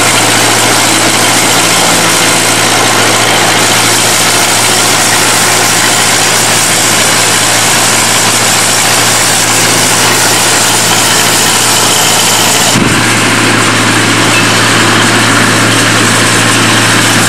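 Small diesel locomotive of a 600 mm narrow-gauge railway running steadily as it hauls loaded open passenger wagons. The sound changes abruptly about 13 seconds in.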